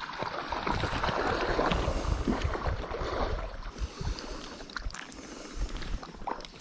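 Moving river water with wind buffeting the microphone, and a few small knocks near the end.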